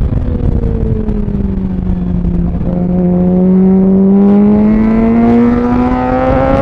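Suzuki GSX-R600 K8's inline-four engine heard from the rider's seat, revs sinking off the throttle through a bend and then climbing steadily from about three seconds in as the bike accelerates out, with wind rumble underneath.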